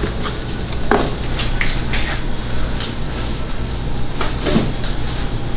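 Irregular knocks and clinks of a knife and utensils on a cutting counter as barbecue meat is sliced and orders are prepped, over a steady low hum.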